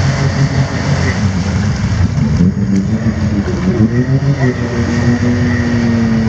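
Can-Am Maverick X3 side-by-side's three-cylinder engine running hard under load, revving up about four seconds in and then holding a higher steady note as the machine tries to pull itself out of swamp mud with one drive axle broken.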